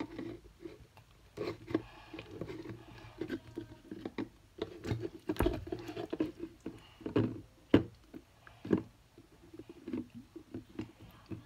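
Watery, sticky slime squeezed by hand down through the neck of a glass conical flask, making irregular clicks and squelching pops.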